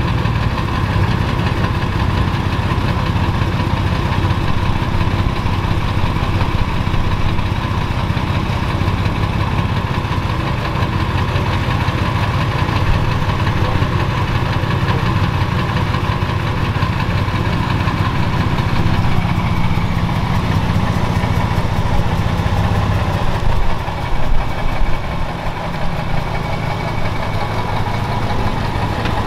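Lowered Chevrolet Silverado pickup's engine idling steadily, with the clattery, diesel-like sound the owner noticed but could not explain. The low rumble thins and wavers briefly about three quarters of the way through.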